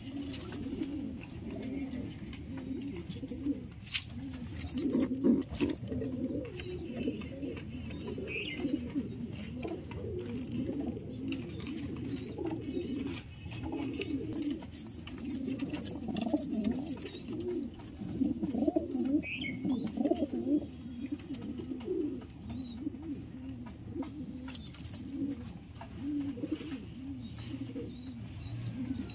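Domestic pigeons cooing continuously, low warbling coos running into one another, with a few sharp knocks along the way.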